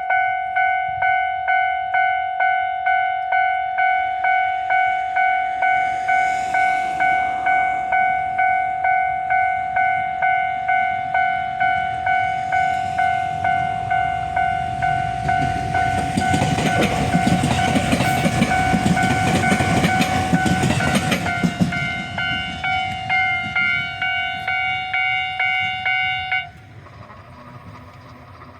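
Japanese level-crossing warning bell ringing in a steady, even rhythm while a train crosses. The train's wheels clatter loudly over the rails for several seconds a little past halfway. The bell stops near the end.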